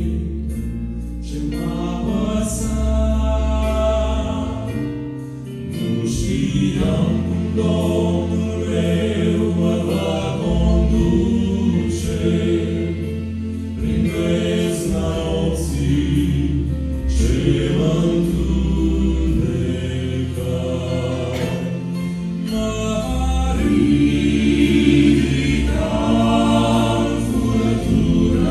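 Male vocal quartet singing a Romanian gospel song in close harmony through microphones, over a steady low bass line.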